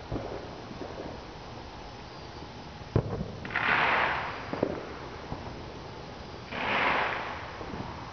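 Distant fireworks going off: scattered sharp pops and bangs, the loudest about three seconds in. There are also two hissing rushes of about a second each, one just after that bang and one about seven seconds in.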